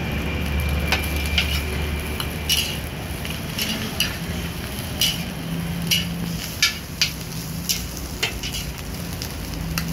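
Long metal ladle and spatula scraping and clanking against a large steel wok as fried rice is stir-fried, with irregular clanks about once a second over a steady sizzle and the low rush of the wok burner.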